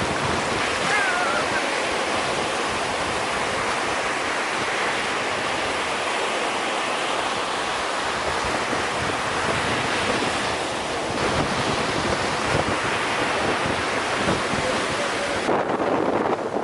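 Surf breaking in hurricane conditions with strong wind buffeting the microphone, a steady rush of noise.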